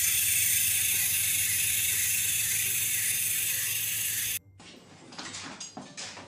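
Small motor of battery-powered toy wiper glasses running steadily with a hissing whir, cutting off sharply about four seconds in. Then faint, irregular knocks and rattles as a dog climbs over a baby gate.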